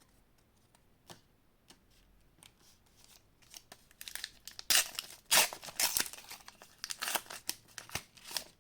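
A Flesh and Blood Uprising booster pack's foil wrapper being torn open and crinkled. A few faint clicks come first, then a quick string of rips and rustles starts about four seconds in.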